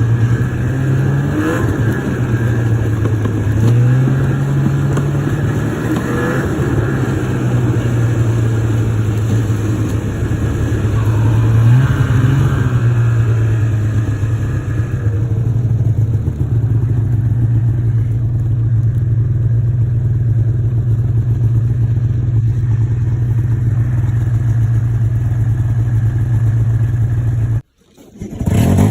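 Two-stroke snowmobile engine running under way, rising and falling in pitch with the throttle several times, then holding a steadier speed. The sound drops out for a moment near the end.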